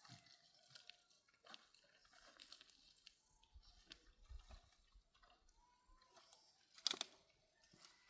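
Near silence: faint scattered rustles and ticks, with one sharp click or snap about seven seconds in.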